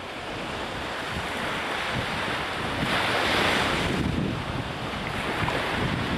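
Atlantic surf breaking and washing up the beach, with wind buffeting the microphone; a wave crashes louder about three seconds in.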